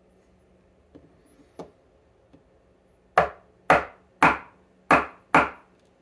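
Five sharp knocks, about two a second, of the brass TESA T80 lock cylinder rapped against the work surface to knock a stuck pin out while the lock is being taken apart. A couple of faint clicks come before them.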